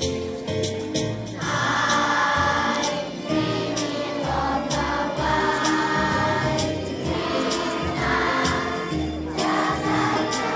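Children's choir singing a Christmas song along with music that has a steady beat of bass and percussion.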